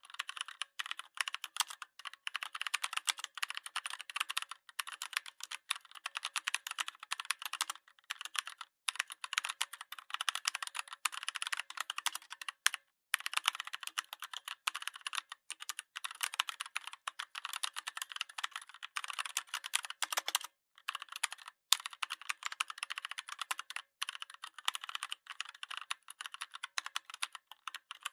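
Fast, irregular clicking and tapping, like rapid typing, running almost without a break with a few short pauses.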